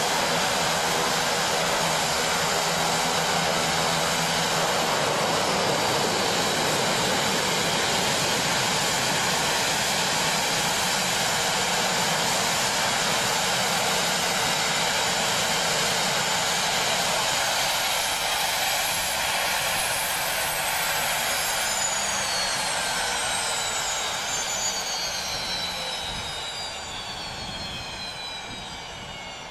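Pratt & Whitney PT6A-65R turboprop engines of a Shorts 360 running down after shutdown with the propellers feathered: a steady rush of turbine noise, then, from about two-thirds of the way in, several falling whines as the turbines spool down and the sound fades.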